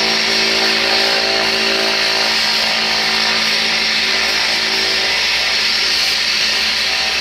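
Cessna Grand Caravan's single turboprop engine running steadily on the ground: a constant high whine over a steady propeller drone.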